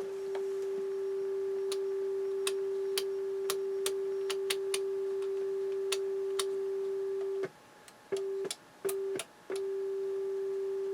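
A steady mid-pitched test tone plays through a JVC JA-S71 stereo amplifier, with sharp clicks as its front-panel mode and selector switches are flipped. Near the end the tone drops out and comes back twice in quick succession, then runs on steadily.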